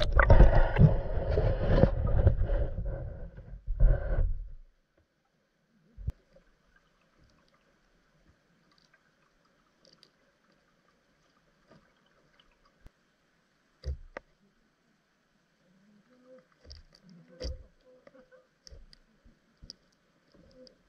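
Underwater camera going into the water: a loud bubbling, rushing sound for the first four seconds or so. It gives way to muffled underwater quiet with a faint steady hum and a few scattered soft clicks and knocks.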